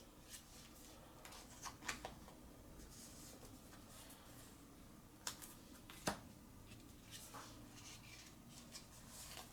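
Faint handling of trading cards and plastic card sleeves: soft rustling with a few short sharp clicks, the clearest about two, five and six seconds in.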